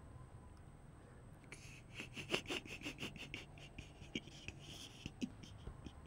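Rustling and light clicks of something being handled, a quick run of them about two seconds in, then scattered single clicks.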